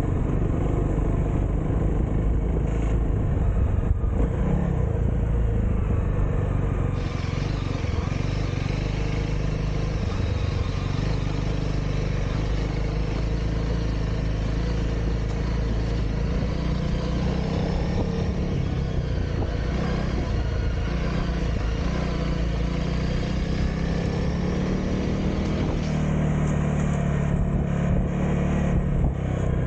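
Honda CRF300L's single-cylinder engine running steadily as the motorcycle is ridden, its pitch rising and falling with the throttle.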